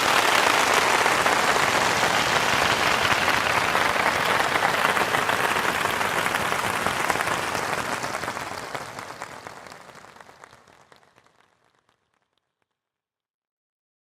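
Audience applauding: dense, steady clapping that begins to die away about eight seconds in and stops about four seconds later.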